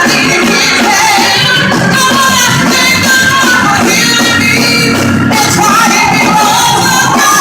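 Loud live gospel band music with singing, the band and voices playing on without a break.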